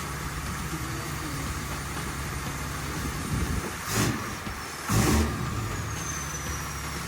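A motor vehicle's engine running steadily, with two short, louder surges about four and five seconds in.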